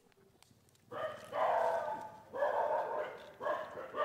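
An animal calling loudly and repeatedly, starting about a second in, in three bouts of about a second each.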